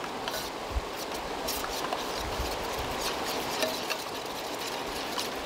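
A metal spoon stirring a wet oil-and-spice marinade in a stainless steel tray, with faint scrapes and clicks, over the steady rushing of a stream.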